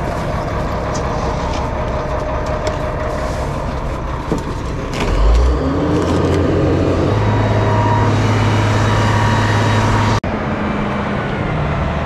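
Crane truck's engine running, with a few light clicks early on. About five seconds in it swells louder and then holds a steadier, higher hum for a few seconds before a brief break.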